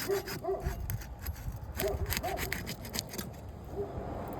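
A steel flat bar scraping and prying under asphalt roof shingles to lift them and break their seal, with a run of short squeaks and scratchy clicks.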